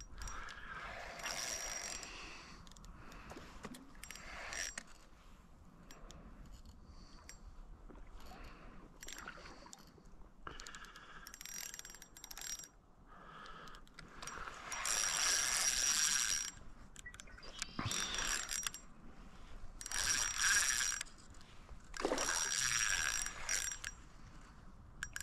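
Ultralight spinning reel being cranked to retrieve line, its gears whirring and clicking in several bursts of a few seconds, the loudest in the second half.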